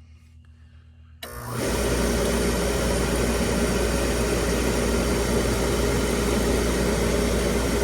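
Oil burner switching on about a second in and running steadily, its motor driving the blower fan and fuel pump while the pump pressure is read on a gauge. The pressure reads a little high against the 140 psi spec.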